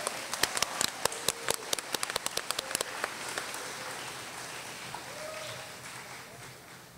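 Audience applauding, with many sharp individual claps for the first three seconds, then thinning and dying away toward the end.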